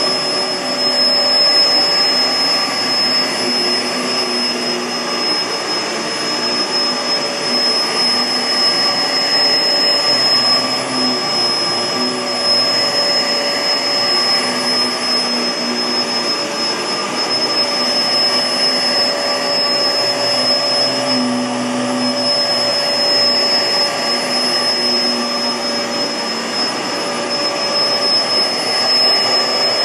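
Kenmore CrossOver Max bagless upright vacuum cleaner running steadily, its SIP Cinderson blower motor giving a constant rush of air with a steady high-pitched whine.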